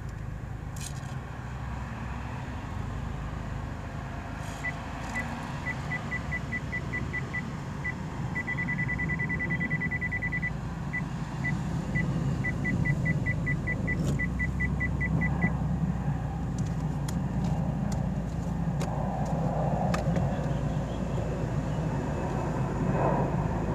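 Maruti Suzuki Baleno's engine running at low speed through a tight U-turn, with the rear parking sensor beeping from about five seconds in. The beeps quicken into a continuous tone as the rear nears the kerb, drop back to single beeps, quicken again, and stop around fifteen seconds in.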